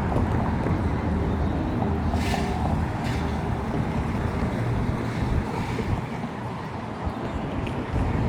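City street noise: a steady low traffic rumble with wind buffeting the microphone, and two short hisses about two and three seconds in.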